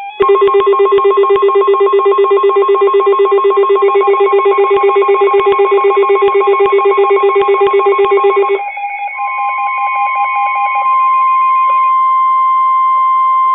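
NOAA Weather Radio alert for a severe thunderstorm warning: a loud, rapidly pulsing alarm tone runs for about eight seconds, then gives way to the steady single-pitch weather radio alert tone.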